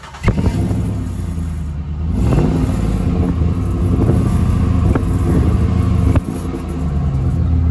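Ram 1500 pickup exhaust at the tailpipe, the engine revved: the note swells a couple of seconds in and is held, dipping briefly near the end. No whistle comes from the clip-on turbo whistle in the tailpipe; the pipe is too big for it to work.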